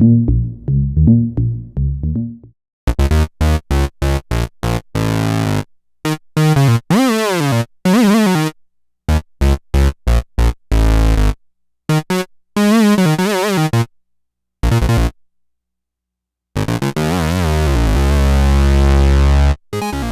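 Moog Minimoog monophonic analog synthesizer playing a string of demo sounds: a low repeating bass figure at first, then short chopped notes with sliding pitch, each cut off into silence. Near the end one long low note is held while its tone sweeps.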